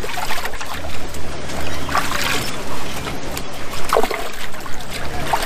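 Water splashing and trickling as live bass are handled in a water-filled tub at the weigh-in, with a few louder splashes about two and four seconds in. Under it runs a low steady rumble, with bits of voices.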